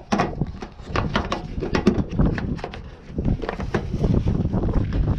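Hands handling hard parts: irregular clicks, taps and knocks, several a second, easing off briefly about halfway through.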